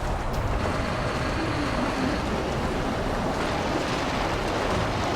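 Steady rushing road noise of highway traffic going by on a wet, slushy road, with a deep rumble underneath.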